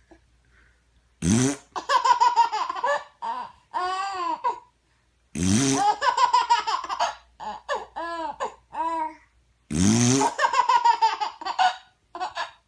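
A short fart noise rising in pitch, heard three times about four seconds apart, each one followed by a baby's giggling bursts of laughter.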